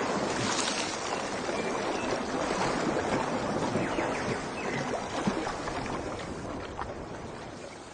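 Steady rushing water, fading out near the end.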